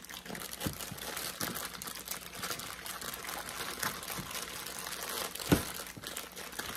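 Plastic bag crinkling and rustling as chicken drumsticks are worked around inside it to coat them in a seasoning and honey marinade, with one sharper knock about five and a half seconds in.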